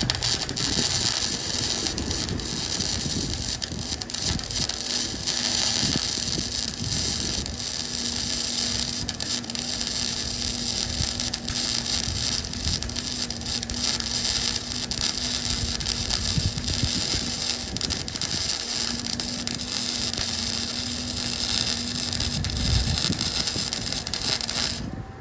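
Flux-core arc welding with .030 wire: a steady, loud crackle with a faint hum under it, cutting off sharply near the end as the arc is broken.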